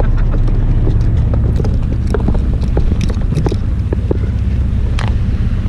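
Low steady rumble of a fishing boat's engine mixed with wind on the microphone, with scattered light clicks and taps.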